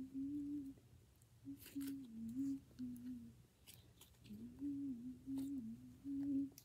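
A girl humming a wandering tune under her breath in several short phrases, with a few faint sticky clicks from the slime being kneaded in her hands.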